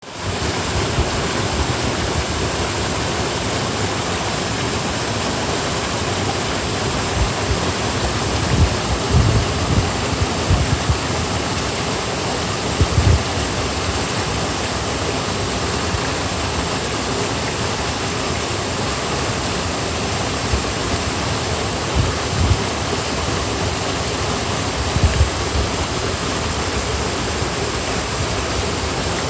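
Steady rushing water, an even full hiss like a waterfall or fast stream, with a few brief low bumps scattered through.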